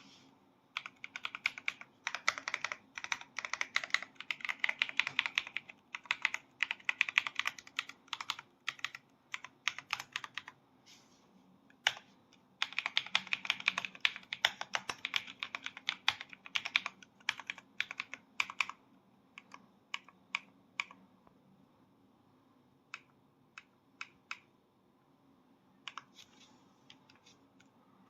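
Typing on an RK Royal Kludge S98 mechanical keyboard: fast runs of key clicks, a short pause a little before the middle, then a second run that thins out into scattered single keystrokes with gaps.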